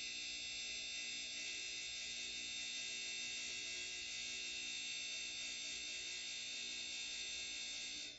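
Darex E90 end mill sharpener's motor and grinding wheel running as an end mill flute is ground: a steady high whine over a lower hum. It stops abruptly near the end.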